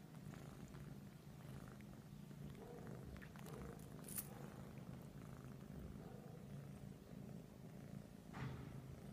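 Persian cat purring steadily and faintly, with a sharp click about four seconds in and a brief scratchy rustle near the end.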